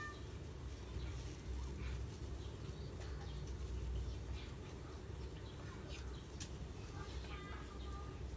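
Quiet room tone: a steady low hum, with a few faint short chirp-like calls near the end and scattered faint clicks.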